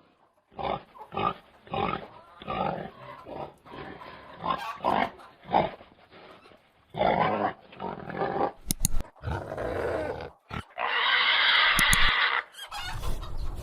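Pigs grunting in a run of short grunts, then one loud squeal lasting about a second and a half near the end.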